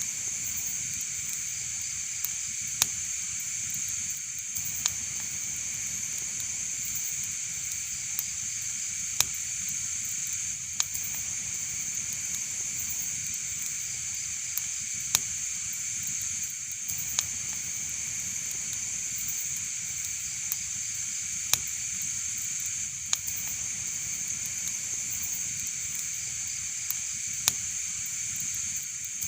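Wood fire crackling: a steady hiss with sharp pops every couple of seconds at irregular intervals.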